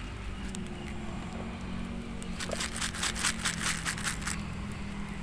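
A steady low engine hum, as of a vehicle running nearby. About two and a half seconds in comes a quick run of crackling clicks lasting about a second and a half.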